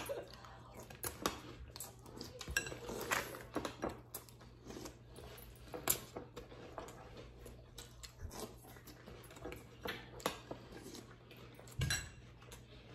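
Spoons clinking and scraping against glass bowls of cereal and milk, many quick, irregular clicks as the cereal is eaten fast.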